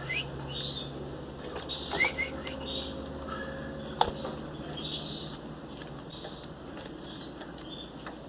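Belgian canary chicks, about eighteen days old, cheeping to beg during hand-feeding: short high cheeps repeated every second or so, with a few quick rising chirps. A sharp click comes about four seconds in.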